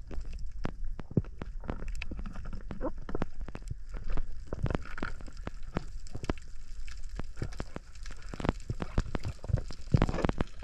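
Underwater reef ambience heard through a waterproof camera housing: irregular sharp clicks and pops over a low muffled rumble, with a louder cluster of pops about ten seconds in.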